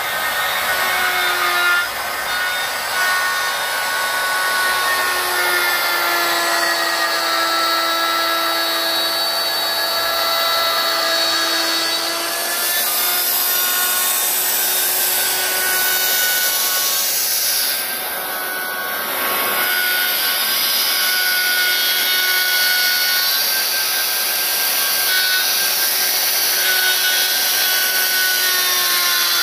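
Electric plunge router running continuously, its spiral bit cutting a groove into a wooden board. A steady motor whine over the hiss of the cut, the pitch shifting slightly at times as the bit takes load.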